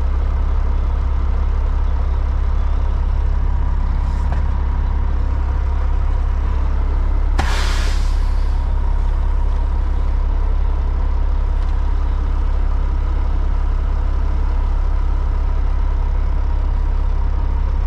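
Concrete mixer truck's diesel engine running steadily with a deep drone, and a single sharp hiss of air from the truck's air brakes about seven and a half seconds in, lasting about a second.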